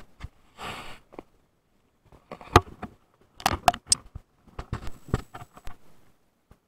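Irregular knocks and clatter of gear being handled in a small boat, with a short burst of rushing noise about half a second in.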